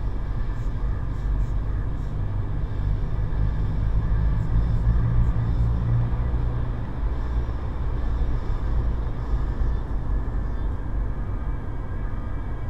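Car driving at highway speed, heard from inside the cabin: a steady low rumble of engine and road noise.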